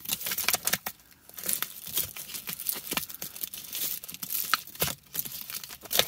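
Clear plastic coin sleeves and wrapping crinkling in a string of irregular crackles and clicks as sleeved copper rounds are handled and shuffled.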